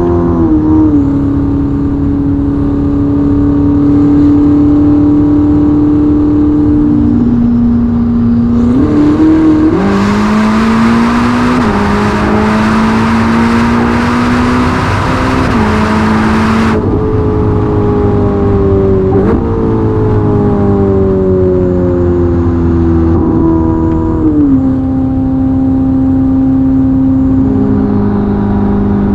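The Ferrari SF90's twin-turbo V8, fitted with a Novitec sport exhaust, heard from inside the cabin at high autobahn speed. The engine note climbs slowly and drops in steps with gear changes, then sinks gradually as the car slows. A loud rush of wind and road noise comes in about a third of the way through and cuts off suddenly just after halfway.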